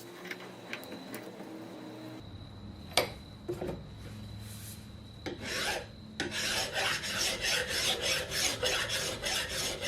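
A few light clicks and taps, then from about six seconds in a steady run of rasping hand strokes, about three a second: a metal part being rubbed down by hand with an abrasive tool to clean off rust.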